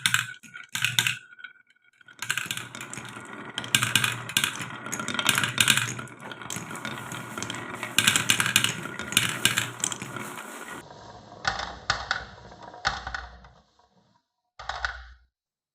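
Marbles rolling and clacking down a wooden marble-run track: a dense rattle of many small hard knocks that thins to a few scattered clatters, with one last short burst near the end before it stops.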